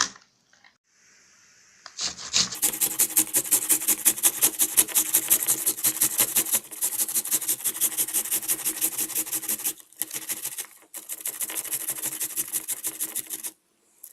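Onion being grated into paste on the finest side of a hand grater: rapid, even rasping strokes, about five a second, with two short pauses.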